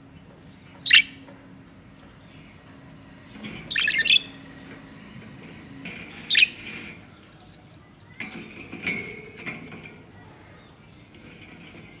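Pet budgerigars calling: a few sharp single chirps, a flurry of calls with a flutter of wings about four seconds in, then softer chattering near the end.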